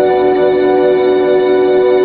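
Background music: sustained, echoing guitar-like tones held steady.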